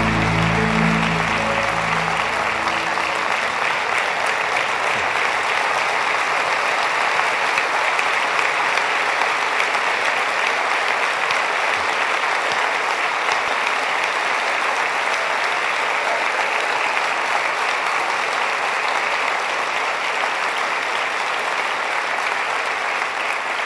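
A large congregation applauding in sustained, steady clapping throughout. Soft background music fades out in the first few seconds.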